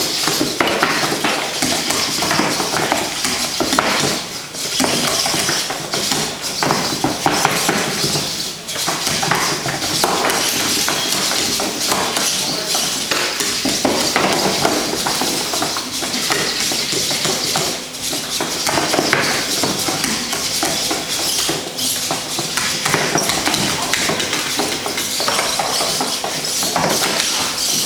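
Small humanoid fighting robots clattering in a bout, with frequent knocks and clacks of plastic and metal feet and bodies on the ring and against each other, and voices in the background.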